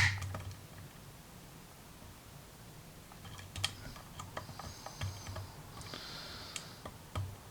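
Faint, irregular small clicks and ticks of a pick working the pins of a six-pin Tecon dimple lock under tension during single pin picking: one sharp click right at the start, then scattered ticks in the second half.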